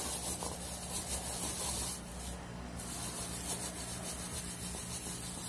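Plastic film rubbing and rustling as a hamburger press is pushed and worked over a raw shrimp patty to mould it, with a short lull about two seconds in.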